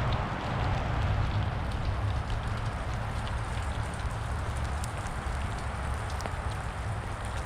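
Steady patter of drops falling onto the ground and debris, with many small scattered ticks over a low steady rumble.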